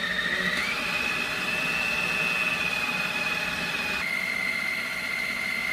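Countertop food processor running, grinding raw squid and seasonings into a paste: a steady motor whine that steps up in pitch about half a second in and drops back about four seconds in.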